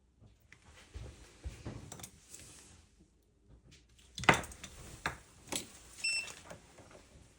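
Tools and parts being handled on an electronics repair bench: scattered clicks and knocks, the loudest about four seconds in, with stretches of hiss and one short electronic beep about six seconds in.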